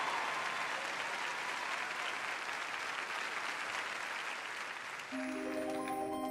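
Studio audience applauding, the applause slowly dying down. About five seconds in, music starts with several held notes.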